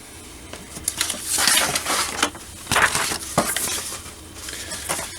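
Plastic packaging and paper crinkling and rustling in irregular bursts as a model kit's contents are handled.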